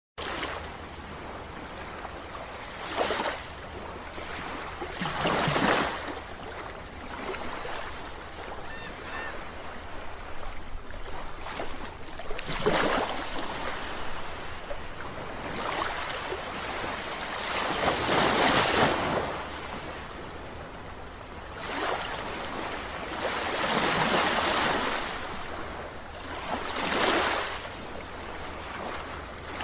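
Sea waves breaking on a beach: a steady wash of surf rising into about six louder swells a few seconds apart, the biggest about two-thirds of the way through.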